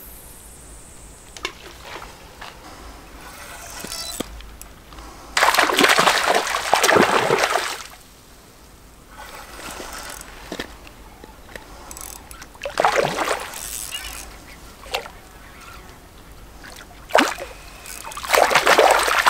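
Hooked cutbow trout thrashing at the water's surface, splashing in several bursts, the loudest near the end as it is drawn in close to shore.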